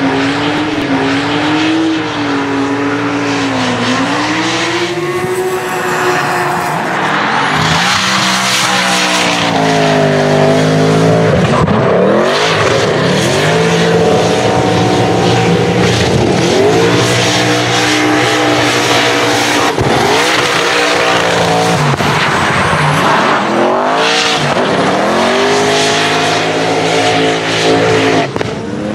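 Drift car engine at full throttle: held fairly steady for the first few seconds, then revving up and dropping again and again as the throttle is worked. The rear tyres spin and smoke sideways underneath with a constant hiss and squeal.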